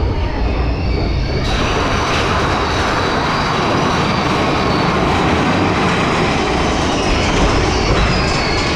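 Mine-train roller coaster cars running along the steel track, a steady loud rattle and rumble with wheels squealing; the hiss brightens about a second and a half in.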